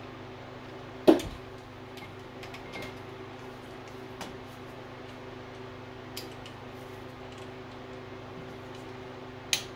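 Wrench and socket being worked on the camshaft timing-gear bolts. There is one sharp metallic clunk about a second in, a few faint clicks and taps after it, and a sharp click near the end, over a steady low hum.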